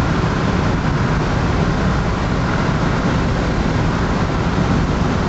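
Steady rumble of a car driving at speed, engine and tyre noise heard from inside the cabin.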